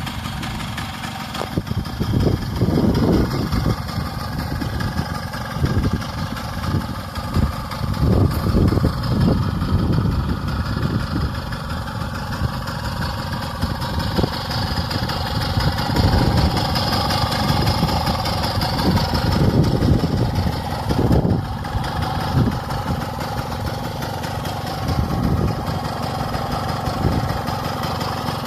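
A 1982 Puch Voy motorcycle's small two-stroke engine idling, with repeated short blips of the throttle that briefly raise the revs and then drop back to idle.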